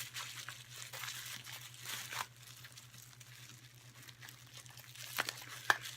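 Packaging wrapped around drink cans being torn and crumpled by hand, fairly faint, with a few sharper crackles near the end. A steady low hum runs underneath.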